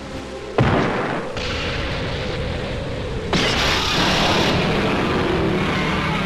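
Monster-battle sound effects: a sudden boom about half a second in, then steady rumbling. A louder, hissing blast follows about three seconds in, and a low steady hum comes in near the end.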